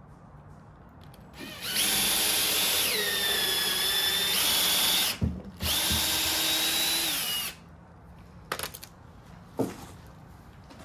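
Cordless drill driving a screw into timber in two runs. The motor note drops as it comes under load partway through the first run, and the second run winds down at the end. A few sharp knocks follow.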